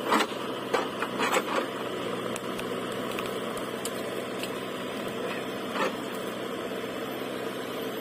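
JCB 3DX backhoe loader's diesel engine running steadily while the backhoe arm works through brush and soil. Several sharp knocks and cracks come in the first second and a half, and one more about six seconds in.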